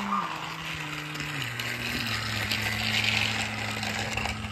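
Battery-powered motorized Thomas toy engine running along plastic toy track, its small electric motor and gears whirring with a gritty rattle. The whine drops in pitch twice in the first second and a half, then holds steady.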